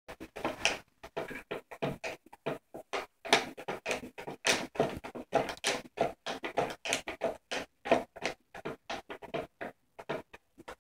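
A cat's claws scratching and batting at a clear plastic clamshell package: many quick, irregular crinkly scratches, several a second.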